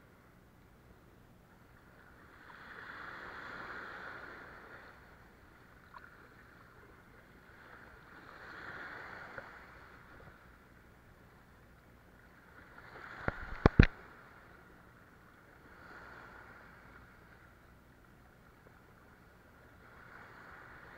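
Small sea waves washing against concrete breakwater blocks, coming in soft swells every four to six seconds. About two-thirds of the way through, a quick cluster of sharp clicks stands out as the loudest sound.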